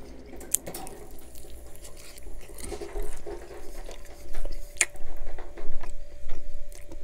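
Wet chewing and lip smacks on a saucy fried chicken drumstick, picked up by a close microphone, with scattered sharp wet clicks from the mouth. It grows louder from about halfway through.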